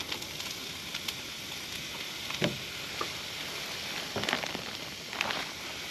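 Vegetables, onions and mushrooms, sizzling in hot oil on a camp cooktop: a steady frying hiss with a few short clicks a couple of seconds in and again near the end.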